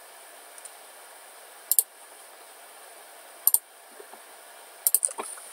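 Computer mouse clicking: a faint click, then two sharp double clicks about two seconds apart, then a quick run of clicks near the end, over a faint steady hiss.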